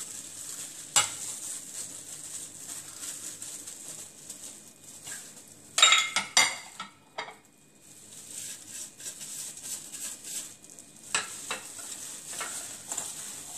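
Crinkling and squelching of a plastic-gloved hand mixing grated radish, minced pork and chopped vegetables in a bowl. About six seconds in, a brief cluster of sharp knocks and rattles sounds, as dishes are handled.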